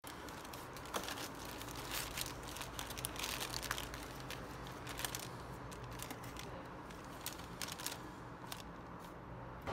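Paper food wrapper around a gimbap roll being unfolded and crinkled by hand: a dense run of crackles that thins out near the end, over a low steady hum.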